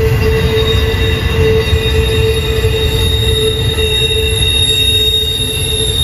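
Train rolling through a tight curve, its steel wheels squealing against the rails: several steady, sustained high tones over a continuous low rumble.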